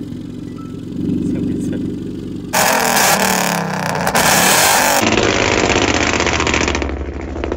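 Car engine idling, then revved hard through a flame-kit exhaust. From about two and a half seconds in, a loud, rapid run of pops and bangs as the exhaust shoots flames.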